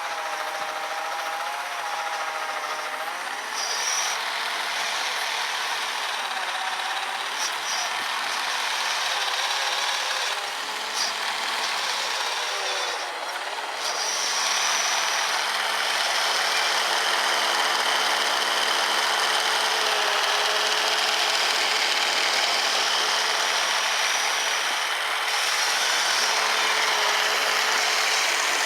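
Small electric motors of an RC snowblower whining steadily over a dense hiss, the whine shifting in pitch as the load changes. The blower's auger is driven by a brushed 550 motor.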